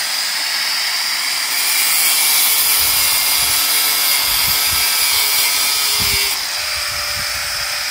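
Electric angle grinder with a cutting disc running and cutting through metal. The noise turns harsher and hissier from about a second and a half in until about six seconds, while the disc is pressed into the cut, then eases back.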